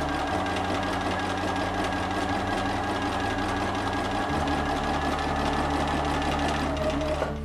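Bernina sewing machine running steadily, zigzag-stitching fold-over elastic onto stretch swimsuit fabric; the motor winds down and stops near the end.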